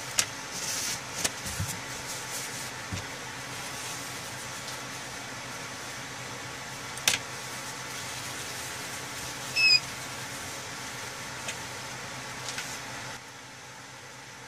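Steady fan hiss from a homemade BGA rework station, with a few sharp clicks and knocks from handling the board and a brief high squeak just before the middle. The hiss steps down in level near the end.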